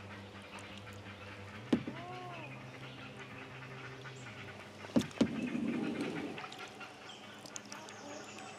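Great blue heron nestlings squawking in the nest colony overhead: an arched, rising-and-falling call about two seconds in, then two sharp knocks about five seconds in followed by a burst of rapid chattering squawks.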